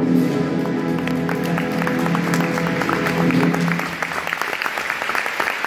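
Orchestra holding a final chord as the theatre audience breaks into applause; the chord stops about four seconds in and the clapping carries on alone.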